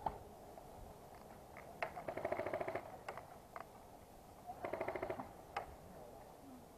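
Airsoft guns firing in the distance: two short full-auto bursts of about fifteen shots a second, at about 2 and about 4.5 seconds in, with a few single shots between them.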